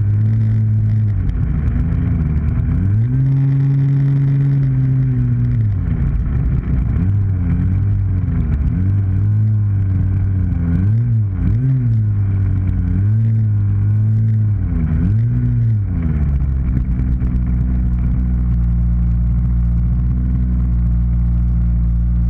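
RC model airplane's engine running on the ground, close to the microphone, its throttle repeatedly opened and closed so the pitch rises and falls. About 16 seconds in it settles to a steady lower-pitched idle.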